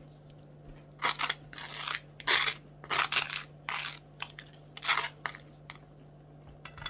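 Table knife scraping plant-based butter across a slice of dark, dry toast: a quick run of short, crunchy scrapes that dies away shortly before the end.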